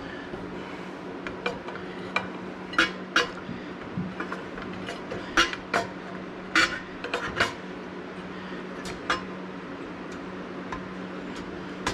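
Irregular metal-on-metal clanks and clinks, a dozen or so sharp knocks with short ringing, as metal parts are shifted and set into the small steel frame of a mini four-wheeler. A steady low hum runs underneath.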